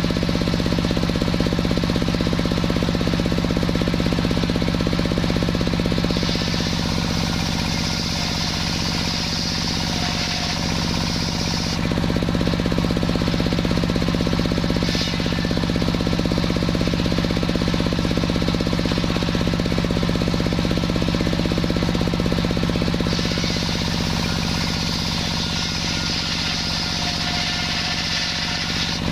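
Sawmill saw running steadily while sawing a waru log, a loud mechanical drone with a steady hum. Twice, for about six seconds each, a higher hiss joins it as the blade cuts through the wood.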